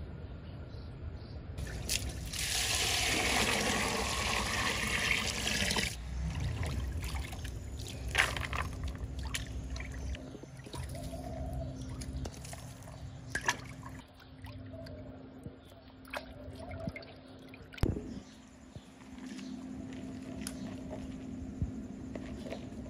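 Water pouring and sloshing as raisins are washed by hand in a steel bowl, with a loud pour lasting a few seconds about two seconds in and a few sharp knocks later.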